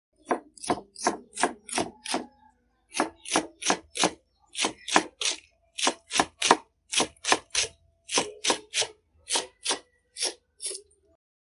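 Kitchen knife chopping peeled bottle gourd and potatoes on a plastic cutting board. The blade strikes the board about three times a second, in short runs with brief pauses.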